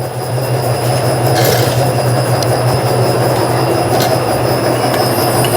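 Ruidcar suspension test machine running under a Hyundai Veracruz, shaking its suspension: a steady loud hum with rattling. The mechanics trace the car's noise to vibration at the stabilizer-bar bushings and links.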